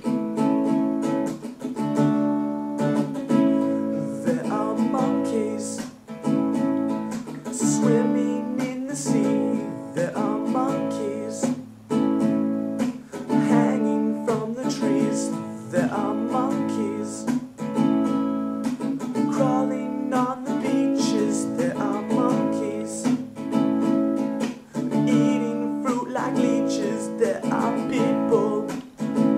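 Music: a strummed acoustic guitar playing chords in a steady rhythm, with a melody line wavering over it.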